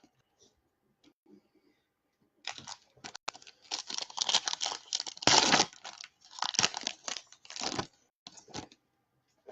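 Foil wrapper of a Topps Chrome baseball card pack being torn open and crinkled: a run of crackling rustles that starts about two and a half seconds in and stops shortly before the end, loudest about halfway through.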